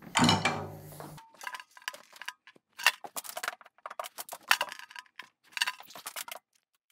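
A ringing hit from the drum kit that lasts about a second, followed by scattered light clicks, taps and knocks of a microphone stand being handled and repositioned. The sound cuts off near the end.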